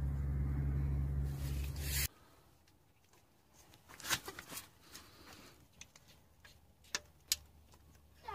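A steady low mechanical hum cuts off suddenly about two seconds in. After that a ratchet wrench on a gearbox bolt gives a few separate sharp clicks over low background quiet.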